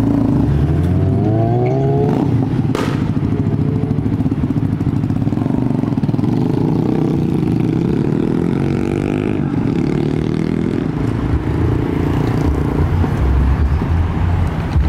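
Cars driving past close by with their engines running. One revs up with a rising pitch about a second in, a sharp snap comes near three seconds, and a deeper low engine rumble follows near the end.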